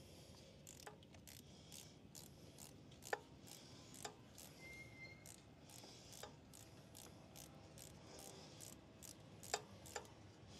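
Faint, irregular clicks and light metallic ticks of a hand tool loosening a motorcycle's coolant hose clamp, with a few sharper clicks standing out.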